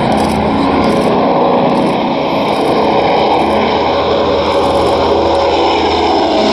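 Lockheed Constellation's four Wright R-3350 radial piston engines and propellers running loud and steady as the airliner flies low toward and over the listener.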